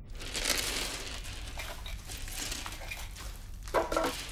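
Rustling of clothing and a cloth bag with the clatter of small hard objects being scooped up off a hard floor and dropped into the bag. A short louder sound comes near the end.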